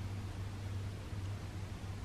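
Steady low hum with an even hiss over it: room tone.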